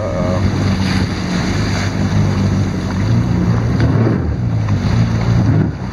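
Jet ski engine running at a steady pitch while under way, with wind on the microphone and water rushing past the hull.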